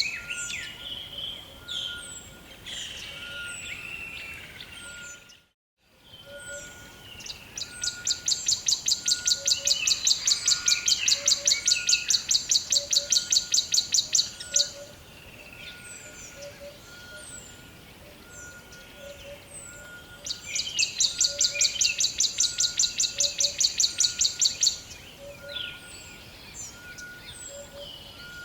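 Rainforest ambience: many birds chirping, with a loud, rapid, evenly pulsed trill that runs for several seconds twice. Beneath it are soft short notes repeating steadily about once a second. The sound cuts out completely for half a second about five seconds in.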